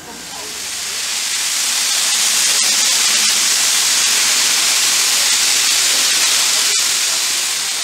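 Steam locomotive venting steam at track level: a loud, steady hiss that builds over the first two seconds and starts to fade near the end.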